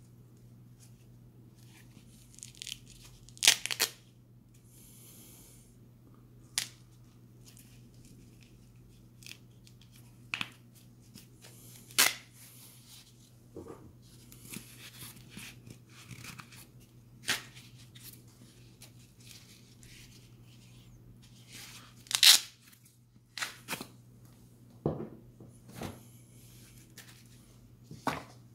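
Nylon flashlight holster being handled: a dozen or so short, sharp ripping noises scattered irregularly, with soft rustling between them, over a steady low hum.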